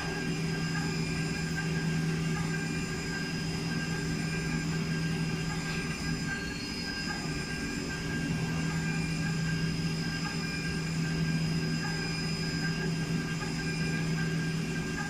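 CNC milling machine's high-speed spindle cutting an aluminium block under coolant spray: a steady machining drone of a constant low hum with thin high whines, the hum dipping briefly about six seconds in. The spindle head's sheet-metal casing is loud, which the owner finds too noisy.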